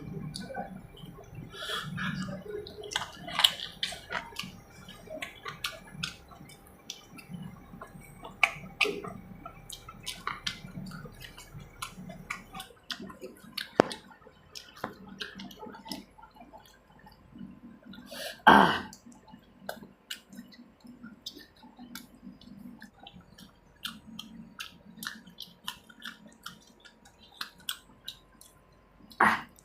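Close-miked eating sounds: chewing with many short sharp mouth clicks, and a louder burst about eighteen seconds in and again near the end.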